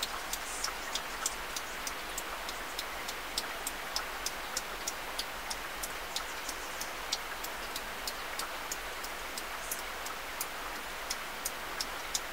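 Rain falling on a car, heard from inside the cabin: a steady hiss with irregular sharp ticks of single drops striking the windshield and body, a few a second.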